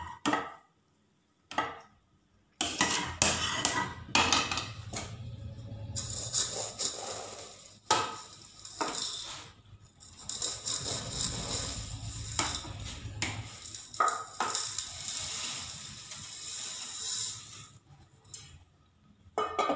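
Steel ladle and bowl clinking and scraping against an aluminium cooking pot while dry vermicelli is tipped into boiling milk and stirred, with a run of rustling hiss through the middle. Irregular knocks and clinks start after a short quiet spell near the beginning.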